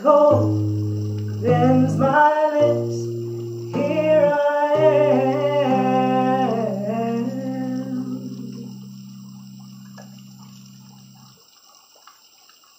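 A woman sings the song's closing phrase over held electric bass guitar notes. Her voice stops about seven seconds in. The last bass note keeps ringing, fading away, and dies out about eleven seconds in.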